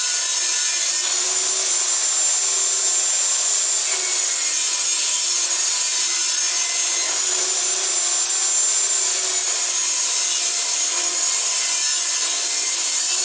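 Benchtop table saw running continuously while ripping a thin strip off the edge of pallet-wood boards, one board after another, with a steady high whine from the blade.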